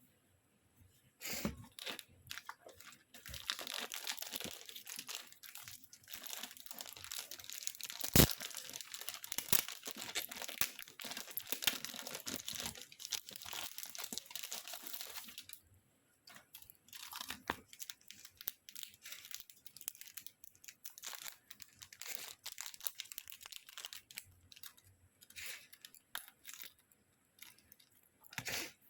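Packaging crinkling and tearing by hand as a deco kit is unboxed: a long stretch of continuous rustling with one sharp snap partway through, then shorter, scattered rustles and clicks.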